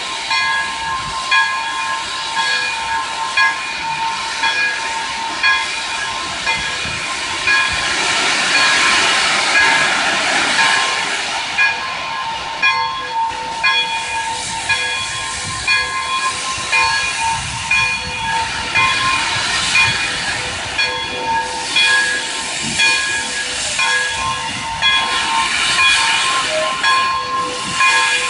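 Pere Marquette 1225, a 2-8-4 Berkshire steam locomotive, hissing as steam blows from low at its front while it edges forward. A ringing tone repeats about once a second throughout.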